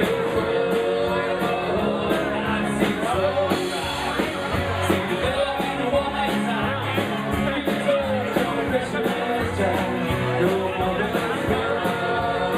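Live band playing a country rock song with guitars and a steady beat, a lead vocal singing over it.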